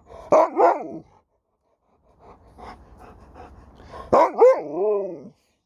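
Alaskan malamute "talking" back: pitched woo-woo vocalizations that bend up and down in pitch. A short two-part reply comes in the first second, then soft grumbling noises, then a longer, louder wavering woo near the end.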